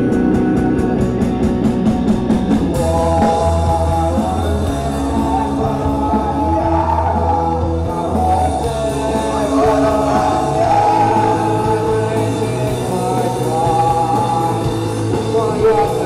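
Rock band playing live, with electric guitars, bass and drums. A voice comes in singing over the band about three seconds in.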